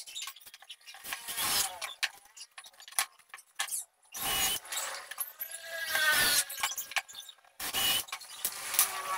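Cordless drill running in several short bursts into the edge of a plywood board. Its motor whine rises and falls in pitch with the trigger. The longest burst comes in the middle, with clicks and knocks of the boards being handled in between.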